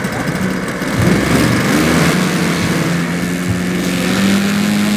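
Engine and propeller of a 1:3.3 scale RC de Havilland DH.82A Tiger Moth model running on the ground. About a second in it is throttled up, getting louder, and its pitch climbs steadily from then on.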